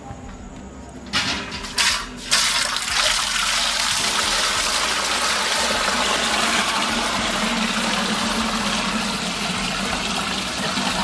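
Liquid poured in a thick stream from a steel pot through a mesh strainer into a steel vessel. A few splashes come just after a second in, then a steady gushing pour runs on.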